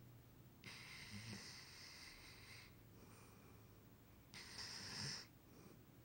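A sleeping dog snoring: two breathy snores, the first about two seconds long, the second shorter and louder.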